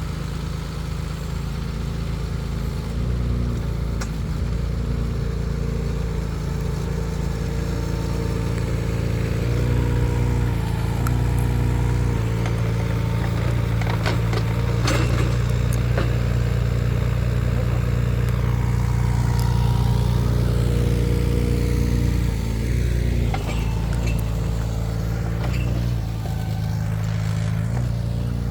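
Mini excavator's engine running steadily, its note stepping up and down as the hydraulics take load while digging. A few sharp knocks about halfway through.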